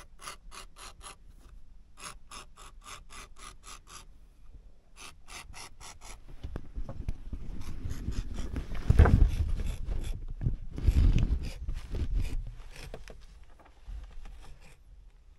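A utility blade scraping and cutting along fabric wall covering in quick rhythmic strokes, about five or six a second, in three short runs. Then louder rubbing and handling of the material, with two heavier surges about two seconds apart.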